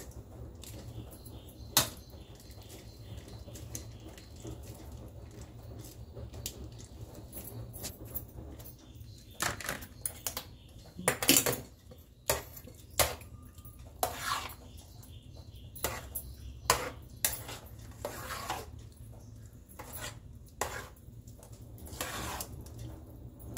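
Metal serving spoon clinking and scraping against a large metal pot as curd rice is stirred, in irregular knocks that come mostly in the second half. A steady low hum runs underneath.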